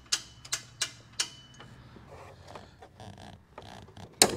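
Ratchet of a hand-cranked lift winch clicking about three times a second as it raises a mini-split air handler, stopping after about a second. Soft handling noises follow, then a sharp knock near the end as the unit is worked onto its wall bracket.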